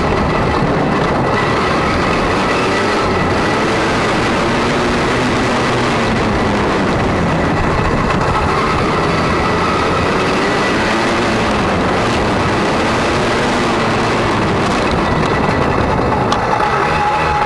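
Motocross bike engine running at close range while riding a dirt track, its revs rising and falling, under a loud rush of wind noise on the microphone.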